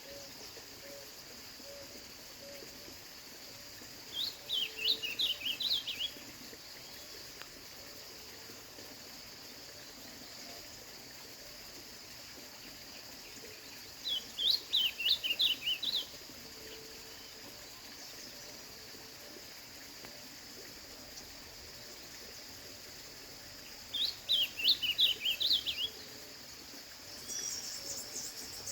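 Ultramarine grosbeak (azulão) singing: three short, quick warbled phrases, each about two seconds long and about ten seconds apart, over a steady high whine. A higher, rapid chirring starts near the end.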